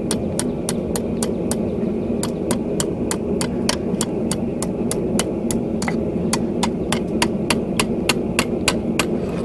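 Hand hammer striking hot steel on an anvil in a steady rhythm of about four blows a second, with a couple of brief pauses, over a steady low hum.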